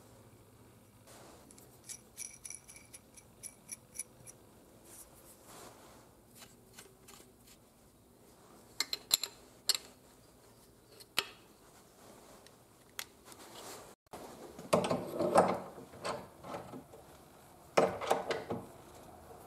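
Small metal parts and hand tools being handled on a workbench: a quick run of light, ringing metallic ticks, several sharp taps, then two short bursts of scraping near the end.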